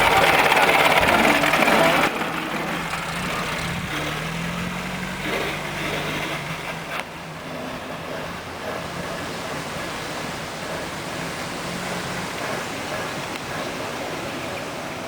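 1926 Morris Cowley rolling chassis running on its four-cylinder side-valve engine, loud at first, then dropping sharply about two seconds in and carrying on fainter with a steady hiss, the engine note rising briefly a few seconds later.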